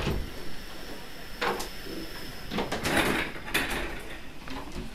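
Irregular rustling and knocking noises, strongest in a cluster past the middle, with a faint steady high-pitched tone over the first half.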